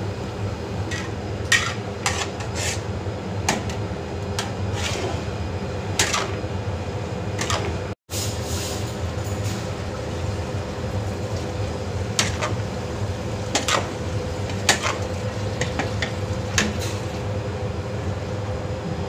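Metal spatula scraping and clinking against a large aluminium wok as a cashew-nut stir-fry is stirred, a dozen or so irregular clinks over a steady low hum.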